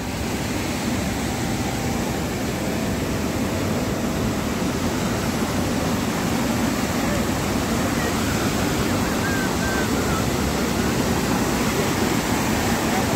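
Steady rushing of fast-flowing river water, an even, unbroken noise.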